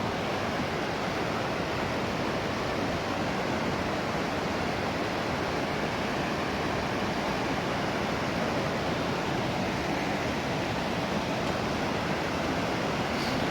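Steady rushing of a mountain river's water, an even unbroken hiss of flowing water.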